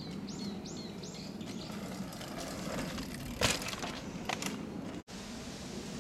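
A mountain bike passing close on a dirt forest trail, its tyres on the dirt loudest about three and a half seconds in. A bird calls three times near the start over a steady outdoor background.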